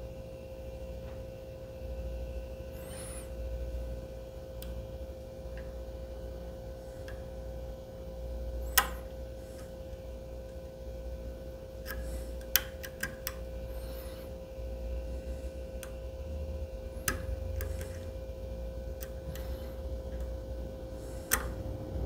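Lock pick and tension wrench working the pins of a Medeco lock cylinder held in a vise: scattered sharp metallic clicks and ticks, a few close together about halfway through, over a steady hum.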